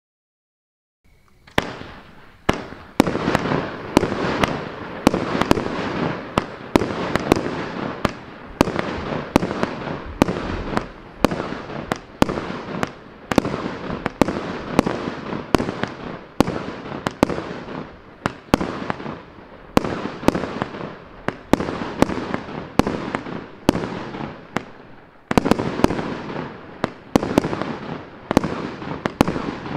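A 300-shot, 30 mm Maxsem MC301 firework cake firing shot after shot, starting about a second in. Sharp reports come about twice a second over a continuous noisy rush.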